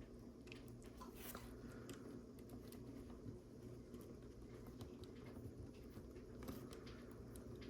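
Faint scattered clicks and ticks of small plastic LEGO pieces being handled and fitted together, over a low steady room hum.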